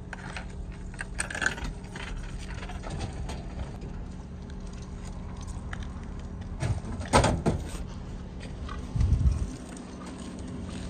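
Frozen-cake vending machine at work: clicks as it is paid and operated, then a loud clatter about seven seconds in and a dull thud near the end as the mechanism dispenses, over a steady low hum.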